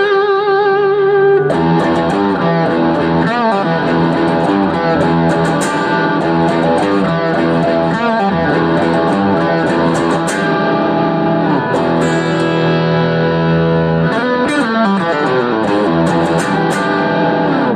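Gibson Les Paul Classic electric guitar played with distortion through a Mooer GE200 and a Tech 21 Hot Rod Plexi, heard from the amp through a phone's microphone. It plays a lead line of held notes with vibrato and string bends, starting with a long shaken note, and the last note rings out at the end.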